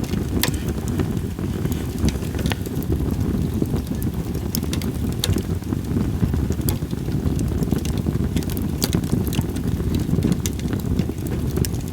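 Split sawtooth oak (kunugi) firewood burning in a campfire, crackling with sharp, irregular pops every second or so, over a steady low wind rumble on the microphone.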